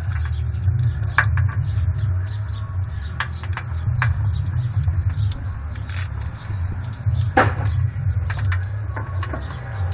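Corrugated plastic split conduit crackling and clicking as it is worked over a wiring harness by hand, with a sharper snap about seven seconds in. A steady low rumble runs underneath.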